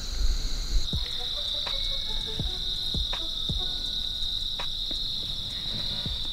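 A chorus of crickets chirring steadily, a high even drone, with a few faint ticks scattered through it.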